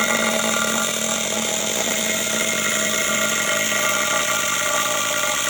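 A power tool on site running steadily at constant high speed, with an even mechanical whine.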